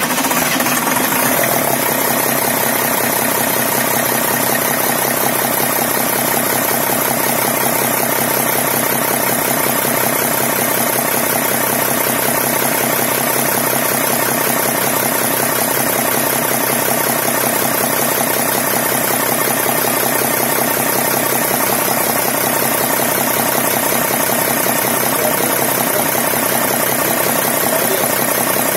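Tata 1613 truck's six-cylinder diesel engine idling steadily with its tappet cover off, just after being started. The freshly adjusted valve gear runs without tappet clatter.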